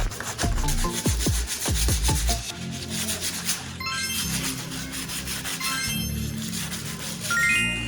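Dry, scratchy rubbing or sanding of an abrasive against a hard surface, over electronic background music. The music has falling pitch sweeps in the first two seconds, then a steady bass with quick rising runs of bright chime-like notes about four, six and seven seconds in.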